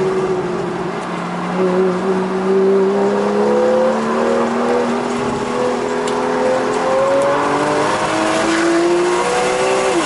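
A Porsche 911 GTS's 3.8-litre flat-six engine, heard from inside the car, pulling hard under acceleration on track. Its note rises steadily in pitch for several seconds, then drops sharply near the end.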